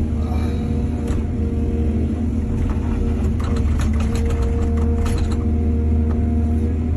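Heavy diesel engine of earthmoving machinery running steadily with a low drone. From about two and a half to five and a half seconds in, a run of quick sharp clattering knocks sounds over it.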